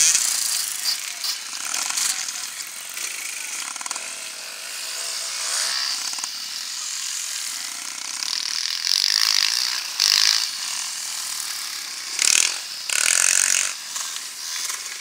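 Off-road enduro motorcycles riding past on a snow course, their engines buzzing and revving. There are louder surges at the start, about two-thirds of the way in and again near the end as bikes pass close by.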